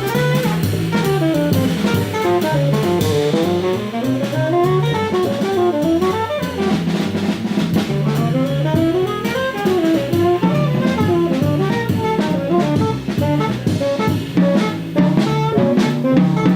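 Jazz trio of tenor saxophone, double bass and drum kit playing. The saxophone runs quickly up and down in swooping phrases over the bass and a busy drum kit with cymbals.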